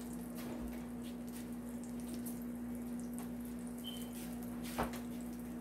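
Melted butter and bacon fat sizzling in a skillet, a steady crackle of many small pops, over a steady low hum. One sharper click about five seconds in.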